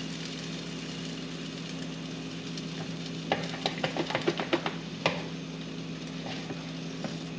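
French toast frying in a buttered pan, a steady sizzle under a low hum. About three seconds in, tongs click rapidly against a mixing bowl as the next slice of bread is soaked in the egg mixture, ending in a sharper knock about five seconds in.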